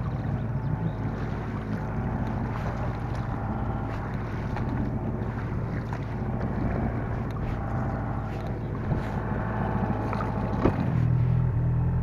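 Small outboard motor running steadily, pushing an inflatable boat through the water, with a constant hum and water rushing along the hull. About eleven seconds in, the motor's note shifts and gets louder.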